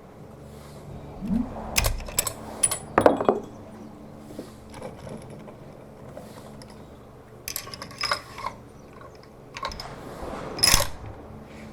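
Bursts of sharp metallic clicks and clacks, in three groups, from handling a bolt-action rifle and gear at the shooting bench. The loudest clack comes about three seconds in.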